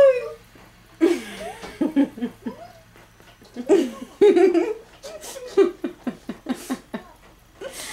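A woman laughing and giggling in several separate bursts, with short quiet gaps between them.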